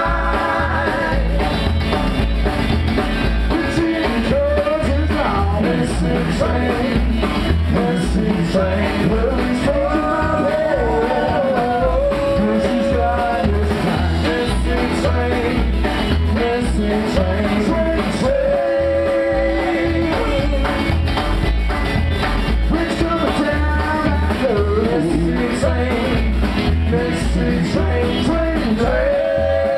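Live country-rock band playing: upright double bass and drum kit keeping a steady driving beat, electric guitar, and a man singing in phrases.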